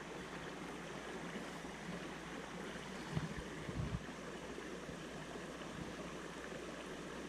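Creek water running steadily, with two soft low thumps about three and four seconds in.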